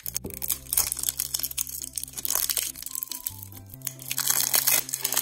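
Background music with a steady bass line, over crinkling and rustling as a cardboard surprise-popper toy tube is handled and turned over in the hands.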